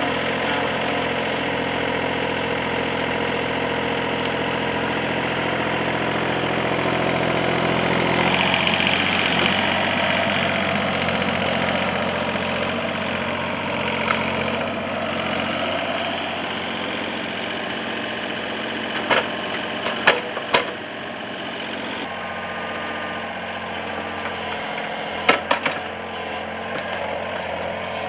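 Compact excavator's diesel engine running steadily while its hydraulics work, the pitch and load shifting about eight seconds in. A few sharp metal clanks sound about two-thirds of the way through and again near the end.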